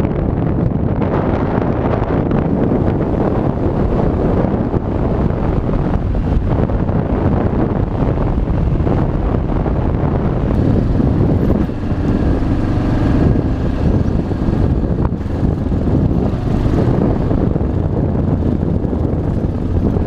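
Yamaha XT600's single-cylinder four-stroke engine running under way, mixed with heavy wind noise on the microphone. Just before the middle the sound dips briefly, then the engine's pitched note comes through more clearly for a few seconds.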